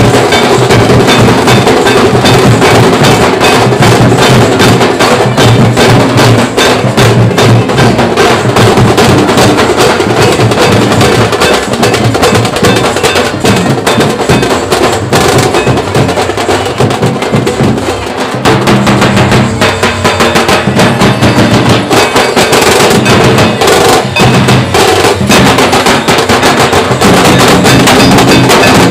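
Nashik dhol troupe playing together: large barrel dhols beaten with sticks in a fast, driving rhythm of dense, sharp strokes. Very loud, easing briefly about two-thirds of the way through and then picking up again.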